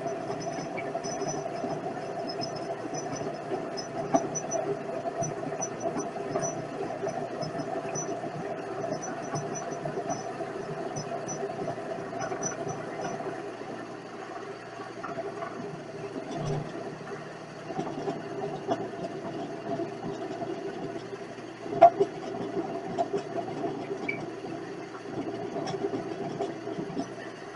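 Vevor 7x14 mini lathe running, with a steady whine and a scattered light rattle and clicks as it turns metal stock. A single sharp knock about 22 seconds in.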